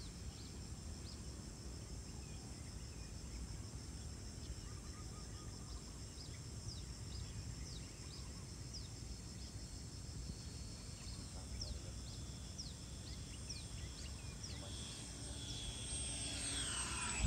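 Faint high whine of a radio-control electric ducted-fan jet, an FMS Yak-130 model, coming in to land: the pitch steps down about two-thirds of the way through and falls away near the end as the fan spools down. Wind rumbles on the microphone throughout, with short bird-like chirps.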